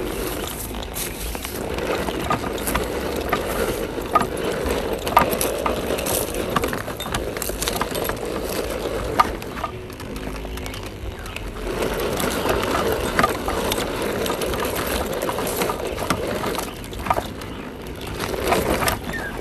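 Scale RC crawler truck's electric motor and gearbox whirring as it creeps over dry, cracked earth, with tyres crunching clods and scattered small clicks. The whirr swells and fades as the throttle is worked.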